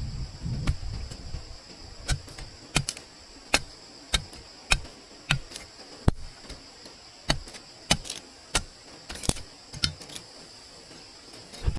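A series of sharp knocks or taps, roughly one to two a second at an uneven pace, over a steady high insect chorus.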